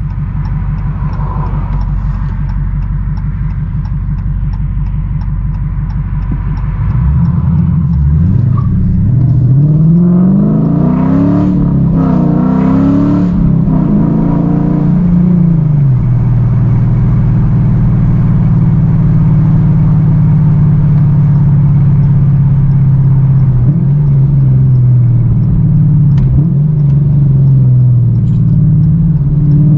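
V8 car engine and exhaust rumbling at low revs, then accelerating from about seven seconds in, the pitch climbing and dropping back several times as it shifts up through the gears. It then settles to a steady cruise.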